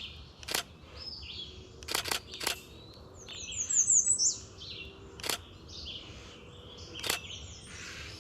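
DSLR shutter firing six times, three of them close together about two seconds in, over the high, thin song of an American redstart singing repeatedly.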